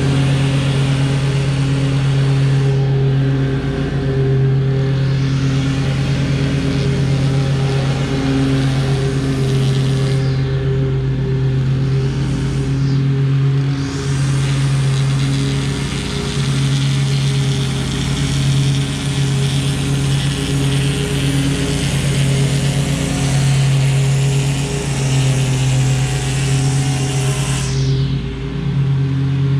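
Small gasoline engines of lawn equipment running steadily: the low hum of a stand-on mower's engine under the higher whine of a gas string trimmer, which eases off briefly a few times.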